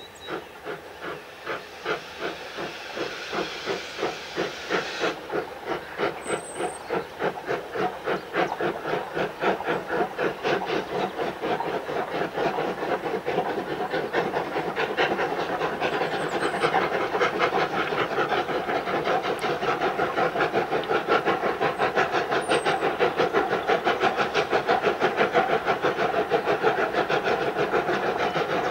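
Two steam locomotives double-heading a passenger train and working hard, their exhaust beats growing louder and thicker as the train draws nearer. A steam hiss over the beats cuts off abruptly about five seconds in.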